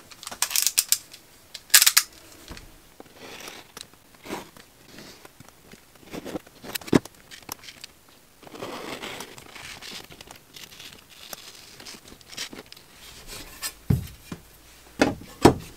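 Utility knife scraping and cutting through vinyl floor covering in short strokes, with crinkling and tearing as the cut piece is pulled away. Several sharp knocks near the end.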